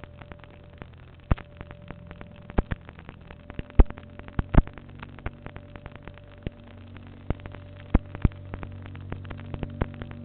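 Sharp pops and clicks at irregular intervals, some much louder than others, over a faint steady hum that grows a little louder in the second half.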